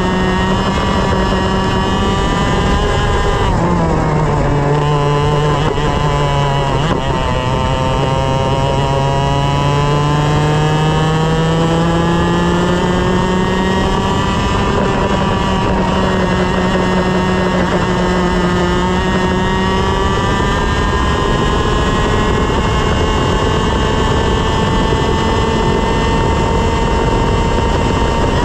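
125cc two-stroke TaG kart engine at racing revs. Its note drops sharply about three to four seconds in as the kart slows, then climbs steadily as it accelerates. It dips briefly again and then holds high near the end, over a steady rush of wind and road noise.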